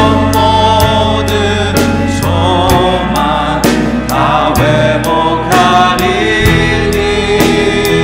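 Live contemporary worship music: a man sings a Korean praise song into a handheld microphone over band accompaniment with a steady beat.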